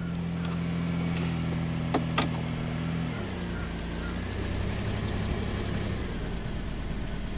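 Toyota 1MZ-FE V6 engine running at raised revs, then the revs falling back toward idle about three seconds in; two light clicks near two seconds. The engine has an intermittent misfire that is set as cylinder 5 (P0305) and smooths out when it is revved up.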